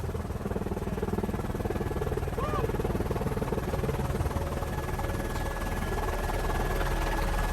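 Helicopter in flight: a steady drone of engine and rotor with a fine rapid flutter, the lowest rumble growing a little stronger about five seconds in.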